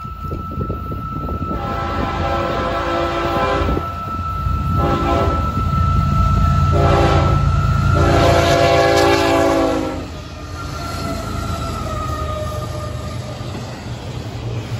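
Horn of an approaching Florida East Coast freight led by GE ES44C4 diesel locomotives, sounded as four blasts for a grade crossing: a long one, two short ones, then a long one. Under it the locomotives' engines rumble, growing louder. After the horn, the freight cars rumble and rattle past.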